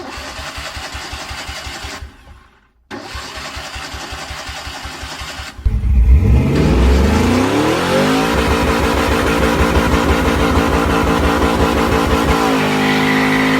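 A vehicle engine running with a steady low pulse, cut off briefly about two seconds in; about five and a half seconds in it jumps much louder and revs up over a couple of seconds, then is held at high revs, as in a burnout, with a shift in pitch near the end.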